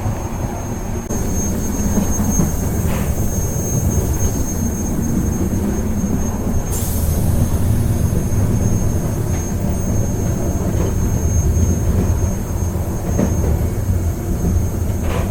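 A passenger train in motion, heard from on board: a steady low rumble of wheels on the track under a constant thin high whine, with a few faint clacks and a brief hiss about seven seconds in.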